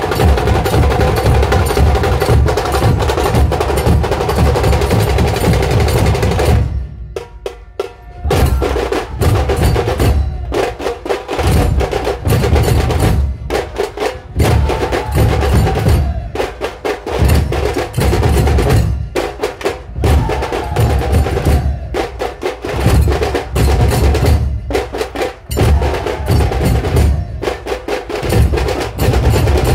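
A troupe of large barrel dhol drums beaten rapidly with sticks. The drumming almost stops for about a second around seven seconds in, then resumes in phrases with short breaks.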